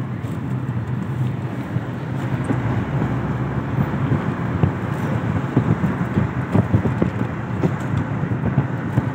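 Car driving on city streets: steady engine and road rumble, with irregular low thumps and crackle growing more frequent in the second half.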